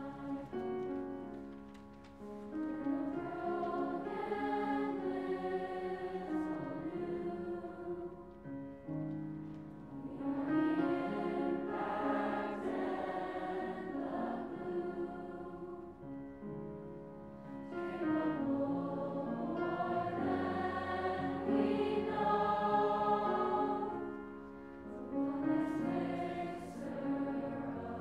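Mixed middle school choir singing in long sustained phrases with grand piano accompaniment, the sound swelling and fading from phrase to phrase.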